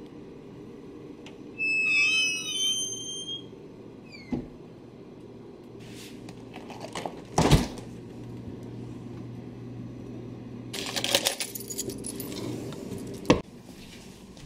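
Household door sounds: a door hinge creaks with a wavering squeal as a door swings open, then knocks and a sharp click as a refrigerator door is handled, over a steady low hum. Near the end comes rustling and another knock.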